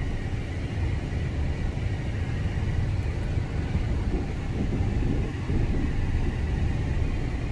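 Steady low rumble of tyre and engine noise inside the cabin of a petrol Ford EcoSport compact SUV on the move.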